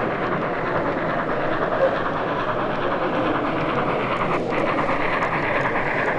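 Steady background hubbub of a busy exhibition hall while a HOm-scale model steam locomotive and coaches run along the layout.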